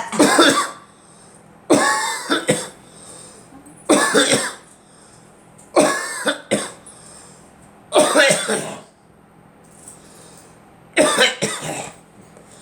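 Repeated harsh coughing: six fits about two seconds apart, some of them double coughs, with a longer pause between the fifth and sixth.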